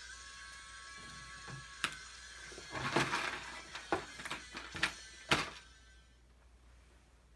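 Faint music fades out, then a run of sharp knocks and clatters, as of things being handled, picked up and set down. The loudest knock comes about five seconds in.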